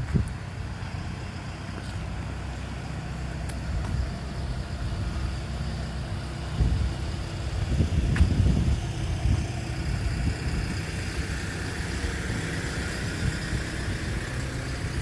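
Road traffic passing on a street, a steady rumble that swells about halfway through, with the hiss of tyres near the end.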